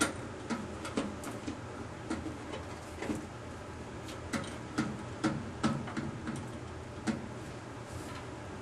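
Irregular light clicks and knocks of Corebox parts being handled and fitted during setup, over a steady low hum.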